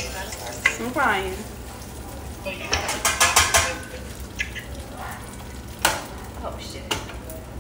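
Metal tongs and stainless steel pots and pans clinking and clattering. There is a quick run of clatters about three seconds in and single clinks later on.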